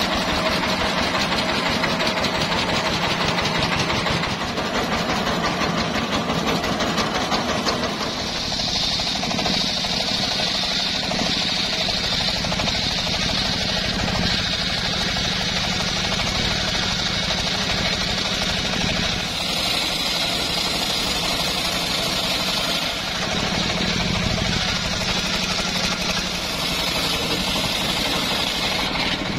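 Homemade circular sawmill powered by a single-cylinder diesel engine: the diesel runs steadily throughout. From about eight seconds in, the large circular saw blade is cutting lengthwise through a teak log, adding a high cutting whine over the engine.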